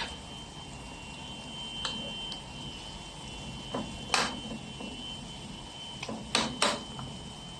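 A cooking utensil knocking against a pan, about six separate sharp clinks with the loudest a little past four seconds and two close together near the end, over a faint steady high whine.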